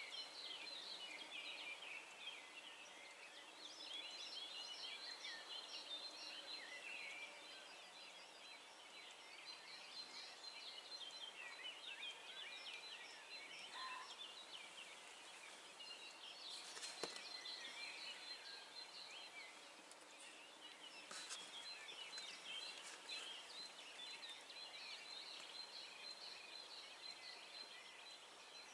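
Faint chorus of small songbirds chirping and trilling continuously, with one sharp click about seventeen seconds in.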